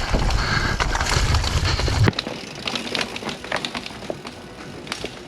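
Mountain bike riding down a rocky trail: wind on the microphone and tyre rumble for about two seconds, then a sudden drop to quieter clicking and rattling.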